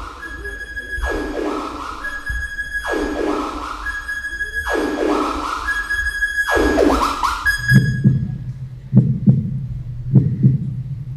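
Electronic dance music played for a stage routine: a held high tone, then a falling pitch sweep, repeated four times about two seconds apart. About eight seconds in it switches to a deep pulsing bass beat with sharp hits.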